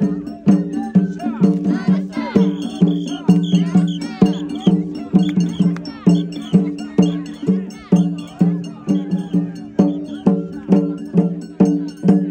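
Metal fittings of a Japanese portable shrine (mikoshi) clanking and ringing in a steady rhythm, about two to three strikes a second, as the shrine is carried and shaken.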